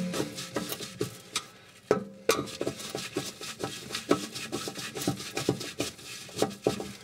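A hand screwdriver nipping up a self-tapping screw in the sheet-metal back panel of a fan oven. It makes metal-on-metal scraping with irregular small clicks, several a second.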